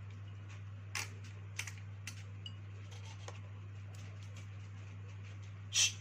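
Scattered light clicks and taps of small parts and tools being handled during a check of a dive light's battery pack for shorts, with a louder click near the end. A steady low hum runs underneath.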